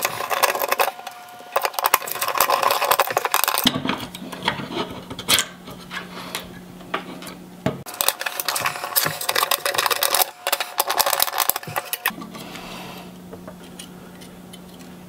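Clicks, scrapes and rattles of a screwdriver and small metal parts on an opened hard disk drive as the read/write head arm is unscrewed at its pivot and lifted out.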